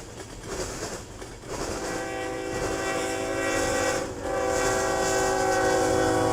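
Locomotive air horn sounding a chord, starting about a second and a half in, breaking off briefly around four seconds and resuming louder, over the rumble of a passing train.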